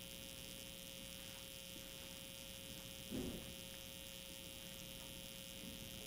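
Quiet room tone with a steady electrical hum, and one brief faint sound about halfway through.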